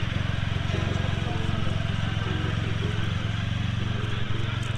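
A car engine idling steadily, with a fast even pulse and no revving.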